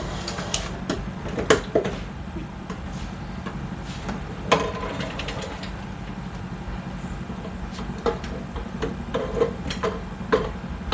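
Automatic 12-volt popcorn machine running with a steady low hum, broken by several sharp metallic clanks and knocks as its cooking pot is tipped and handled.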